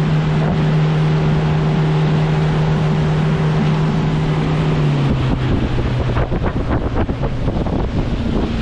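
Boat engine running steadily under way, with wind on the microphone and water rushing past the hull. About five seconds in the engine note drops to a lower pitch as the boat slows.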